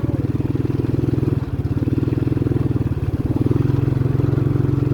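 Small engine running steadily with a rapid, even firing beat, a little louder about three seconds in.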